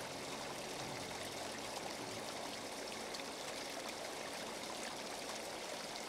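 Small waterfall trickling down a rock face into a shallow pool of stones, with a steady, even splashing.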